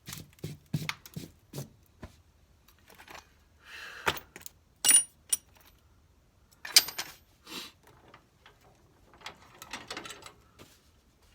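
Scattered metal clanks and knocks of parts and tools being handled while a garden tractor is taken apart, with a bright ringing clink about five seconds in and another sharp hit near seven seconds.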